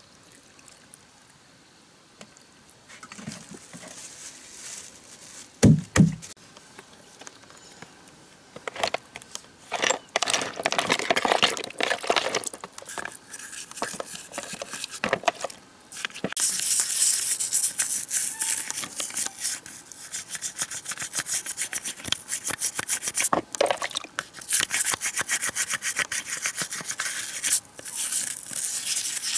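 Metal parts being washed by hand in a basin of cleaning liquid, with splashing and rubbing and a couple of sharp knocks about six seconds in. From about halfway through, a stiff brush scrubs fast and steadily at the bores of the car-wash pressure pump's metal head.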